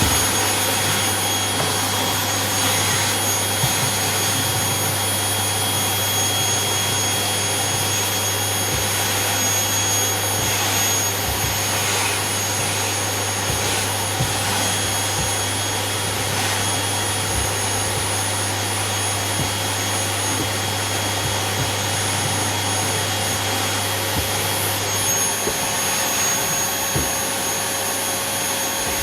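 Household vacuum cleaner running steadily: a rushing of air under a high motor whine, with a few light knocks. A low hum drops away near the end.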